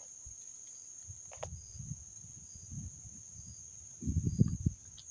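Steady high drone of insects, with short high chirps repeating about twice a second. About four seconds in, a short burst of crunching and brushing as someone moves through leafy undergrowth.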